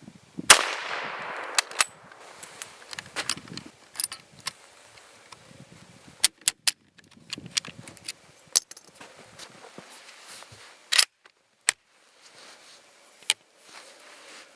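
A single loud, sharp report from the Gewehr 88 rifle about half a second in, with a trailing decay of over a second, followed by a scattered run of short metallic clicks and clacks from the rifle's bolt action being handled.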